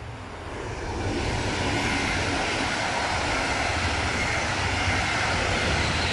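Double-deck regional passenger train passing close by: a steady rush of wheels on rails and displaced air that swells about a second in and starts to fade at the very end, with wind buffeting the microphone underneath.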